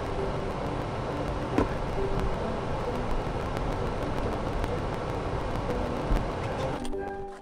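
Steady rushing noise inside a vehicle cabin, with the engine running and the air conditioning blowing. A single sharp click about a second and a half in. The noise cuts off suddenly near the end.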